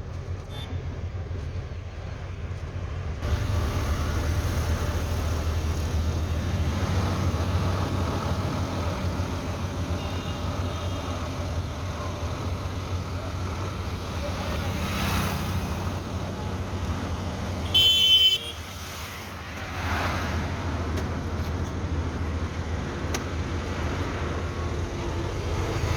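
Motor vehicle running on a road with a steady low engine and road rumble, and one short horn honk about eighteen seconds in.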